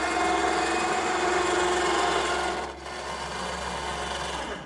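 12-volt electric winch on a truck-mounted crane running under load, a steady motor whine. A little under three seconds in it goes quieter and its tone changes, and it stops at the end.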